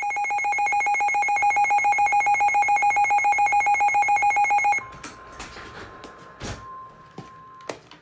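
Midland weather radio's alert alarm sounding for a severe thunderstorm warning: a loud, rapidly pulsing beep that stops about five seconds in. After it a faint steady tone and a few clicks and bumps remain.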